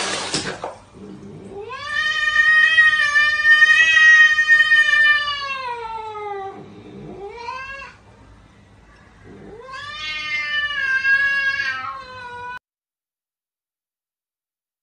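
A cat yowling in long, drawn-out wails: one call of about five seconds that sinks in pitch at its end, a short rising call, then a second long wail.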